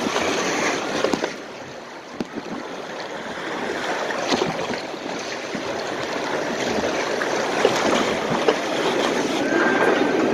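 Water rushing and splashing through a log flume ride's trough as the log boat floats along, with scattered small splashes. The wash dips after about a second and then builds slowly.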